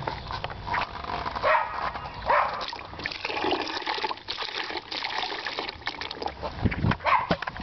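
Stagnant water pouring out of a failed thermal expansion tank and splashing onto grass, with irregular glugs and gurgles from the tank's opening and a few dull thuds near the end. Water that has got past the failed bladder into the air side has gone stagnant, and this is it being emptied out.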